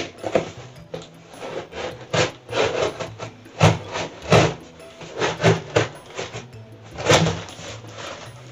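Packing tape being torn off a cardboard shipping box and its flaps pulled open: a run of irregular ripping, scraping and rustling noises of uneven strength.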